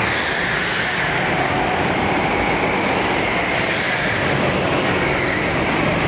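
Several go-kart engines running together as a pack of karts races past on an indoor track, a steady loud din with engine pitches shifting as they accelerate and lift.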